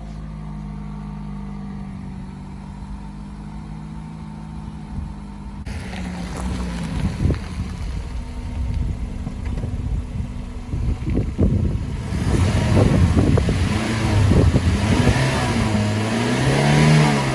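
Toyota Celica's four-cylinder engine idling steadily; about six seconds in the sound changes abruptly to louder running, with the engine pitch rising and falling as it is revved and driven.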